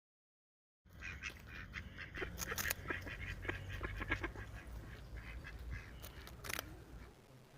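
Waterfowl calling: a run of short honking and quacking calls over a low rumble, starting about a second in and fading out near the end.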